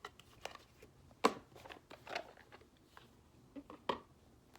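A deck of Numerology Guidance Cards being handled: scattered clicks and taps of cards and their box, the sharpest about a second in and another near the end.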